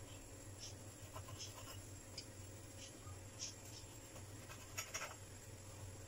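Faint scraping and light taps of a drinking glass's rim pressed and twisted through rolled-out dough on a countertop, as rounds are cut and lifted away. A couple of sharper clicks come about five seconds in, over a low steady hum.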